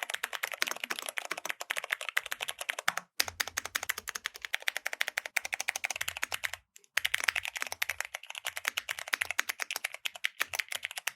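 Fast typing on a mechanical keyboard with Cherry MX switches: a dense run of key clicks, with short breaks about three and seven seconds in. After the first break the keystrokes carry a deeper thud.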